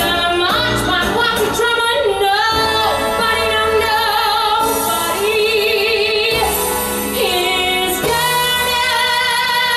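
A woman's voice singing a Broadway show tune to instrumental accompaniment, belting long held notes with a wide vibrato.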